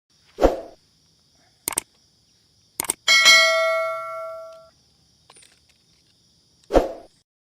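Edited sound effects: a bell-like ding with a ringing tail of several tones about three seconds in, sharp clicks before it, and short whooshes near the start and near the end, over a faint steady high tone.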